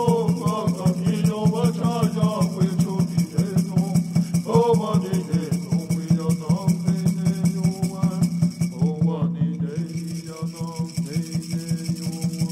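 Music with a fast, steady pulsing beat over a sustained low drone, and a melody that rises and falls above it.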